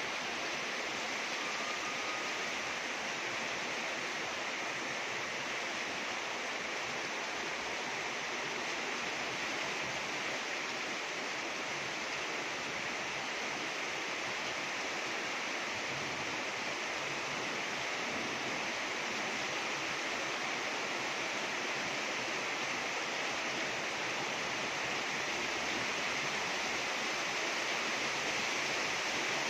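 Rain falling steadily, an even hiss that holds unchanged throughout.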